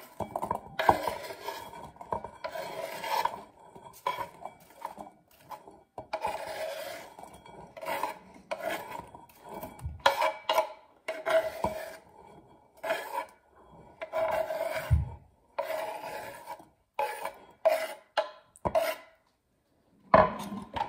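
Knife blade scraping finely chopped apple, pickle and egg off a wooden cutting board into a bowl: a run of short, irregular rasping strokes, with a dull knock now and then.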